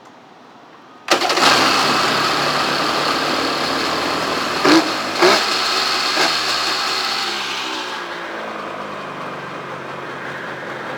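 2001 Polaris Virage TX 1200's carbureted three-cylinder two-stroke engine starting abruptly about a second in and running, with two brief louder bursts near the middle, then settling a little lower. The sound shows the engine still runs.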